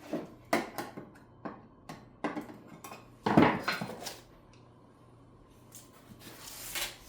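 Metal can of wood stain and tools being handled: a run of separate clinks and knocks, the loudest a little over three seconds in, then a short scraping hiss near the end.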